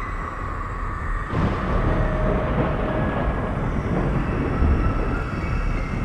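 Low rolling thunder rumble that swells about a second in, over a steady ambient drone of held tones.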